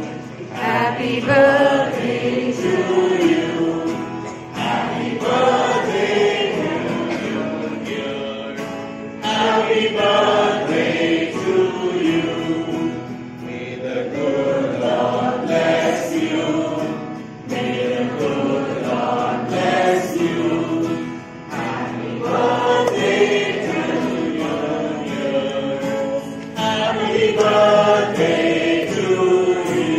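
Several voices singing a song together as a group with instrumental backing, in phrases broken by short pauses every few seconds.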